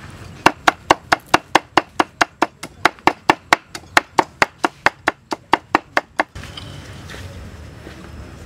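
Cleaver mincing chilies and aromatics on a thick wooden chopping board: a quick, even run of sharp knocks, about five a second, that stops about six seconds in.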